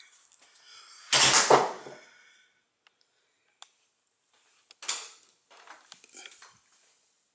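Interior door hardware being handled as doors are opened: a loud metallic clatter about a second in, then softer knocks and rattles about four and five seconds later.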